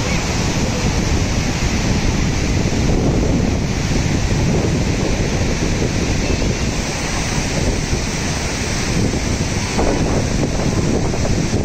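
Fast mountain river rushing over rocks in whitewater rapids, a steady loud rush, with wind buffeting the microphone.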